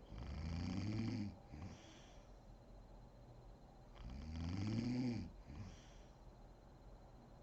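Woman snoring in her sleep: two long, loud snores about four seconds apart, each rising and falling in pitch and followed by a short, fainter tail.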